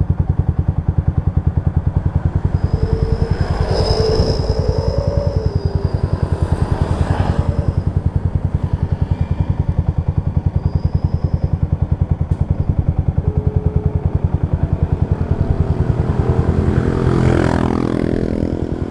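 Yamaha Vixion's single-cylinder engine idling with a steady, even pulse, with traffic passing by twice.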